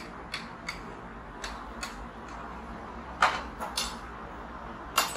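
Dishes and cutlery clinking and knocking as a table is cleared: a string of short, sharp clinks, the loudest about three seconds in and again near the end, over steady background noise.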